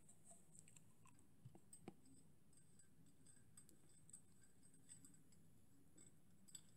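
Near silence: faint room tone with scattered small clicks and ticks as the fill plug on top of a small model copper boiler is worked by hand.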